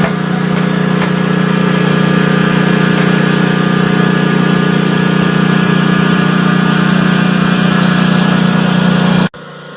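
Construction machine engine running steadily at one even pitch, cut off abruptly near the end.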